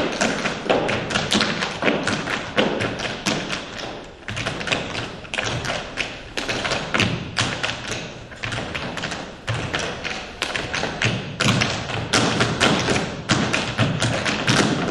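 Rapid, dense percussive footwork: hard-soled shoes striking a stage floor in fast, irregular runs of many strikes a second, easing briefly about four seconds in.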